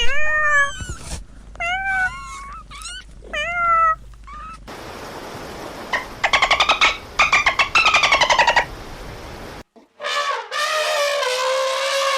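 Cat meowing several times in short, rising-then-falling calls. A different animal follows, with a call made of rapid pulses over background noise, and then a long drawn-out call.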